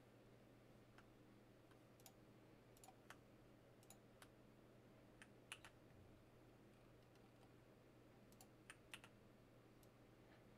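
Near silence with faint, irregular clicks of a computer keyboard, some coming in quick clusters, over a faint steady low hum.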